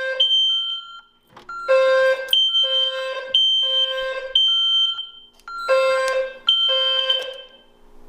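Fire alarm sounding: a repeating pattern of short electronic tones that step between a low and a high pitch. The runs break off briefly about a second in and again just past five seconds.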